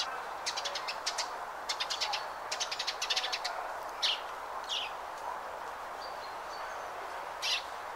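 Small birds chirping: runs of quick high chirps in the first few seconds, then two short downward-sliding calls about four and five seconds in, and one more chirp near the end, over a steady hiss.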